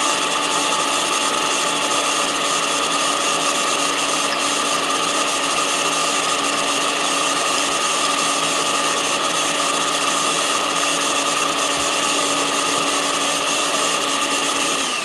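Countertop blender motor running steadily at a constant pitch, blending a thick cake batter of ground peanuts, chia and whole eggs.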